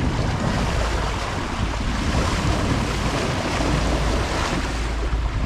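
Water rushing past the bow of a motor-sailing sailboat, with wind buffeting the microphone: a steady rushing hiss over a low rumble.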